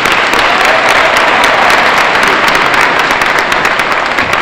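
Audience applauding: many hands clapping in a dense, steady wash that starts to fade near the end.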